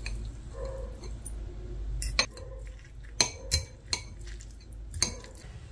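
Metal spoon and fork clinking against a ceramic bowl while breaking into a fried egg over rice, about half a dozen sharp, irregular clinks.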